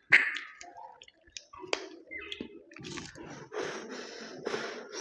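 Close-miked eating of mutton curry: wet chewing and squishing with scattered sharp clicks, and a sharp loud sound right at the start.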